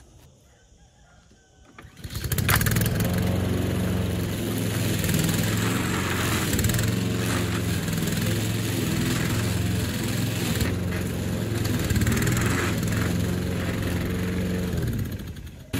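Petrol lawn mower engine starting about two seconds in, then running steadily, its pitch wavering slightly as it works; it drops away briefly near the end.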